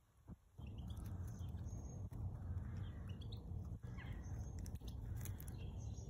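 Small birds chirping in the background over a steady low rumble that sets in about half a second in.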